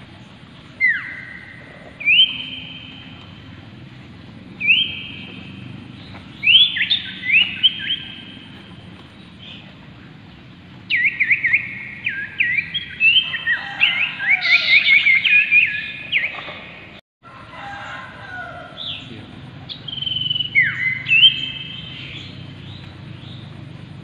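Common iora (Aegithina tiphia) calling: clear whistled notes, some sliding downward, repeated every second or two, then a fast run of chattering whistles in the middle before single notes return. The sound cuts out for a moment about two-thirds of the way in.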